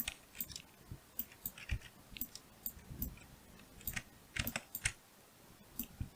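Computer keyboard keys and mouse buttons clicking in irregular taps, some in quick pairs, thinning out near the end.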